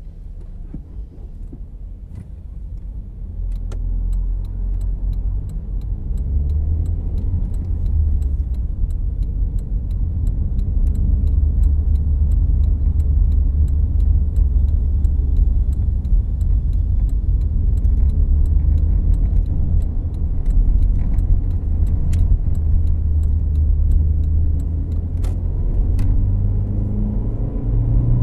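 Volkswagen Jetta Clasico heard from inside the cabin while driving: a low, steady rumble of engine and road noise that grows louder over the first few seconds as the car picks up speed, then holds. Faint scattered clicks sound over it.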